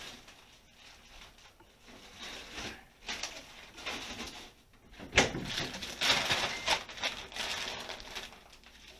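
Irregular rustling and crinkling from handling food packaging, with a sharp click about five seconds in.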